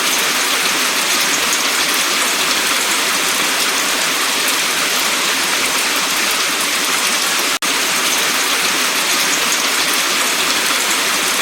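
Heavy rain pouring down, a loud steady hiss of water. It breaks off for an instant about seven and a half seconds in, then carries on.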